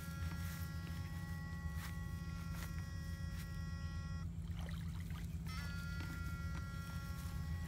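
Backpack electrofishing inverter buzzing, with a steady high-pitched whine over a low buzz while current flows through the probes in the water. The whine cuts off about four seconds in as the probes are lifted out, and returns about a second and a half later when they go back in.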